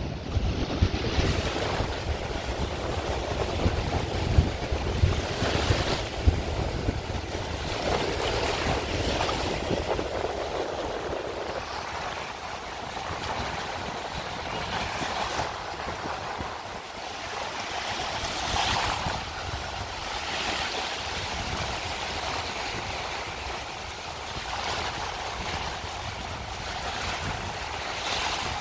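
Lake Superior surf: small choppy waves breaking and washing up on a sandy beach, the rush swelling every few seconds. Wind buffets the microphone with a low rumble, heavier in the first half.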